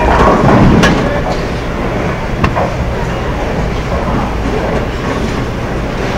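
Bowling alley din: a steady rumble of balls rolling down the wooden lanes and through the ball return, with two sharp clacks in the first few seconds.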